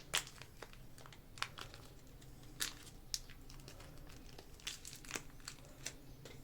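Plastic clay packaging being crinkled and torn open by hand, a run of irregular sharp crackles with the loudest just at the start.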